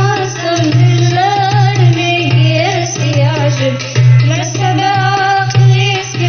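Tunisian wedding song: a melodic vocal line over drums and a pulsing bass.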